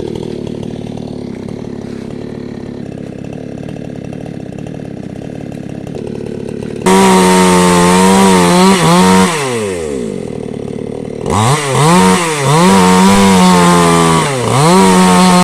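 Chainsaw engine running at low speed for about seven seconds. It is then opened up to full throttle with a high, loud whine. The revs fall away around ten seconds in, then it revs high again, with two brief dips in pitch near the end.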